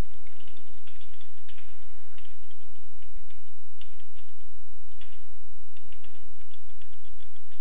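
Computer keyboard being typed on: irregular runs of short key clicks as a sentence is typed.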